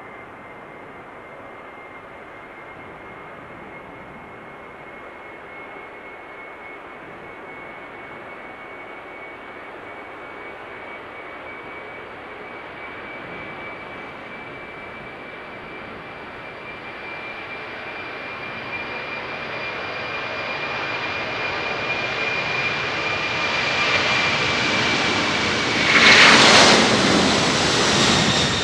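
Four General Electric CF6-80C2 turbofans of a Boeing 747-400 at takeoff thrust on the takeoff roll: a steady high whine over a jet roar that grows steadily louder as the aircraft approaches. It peaks loudly near the end as the jet passes close by.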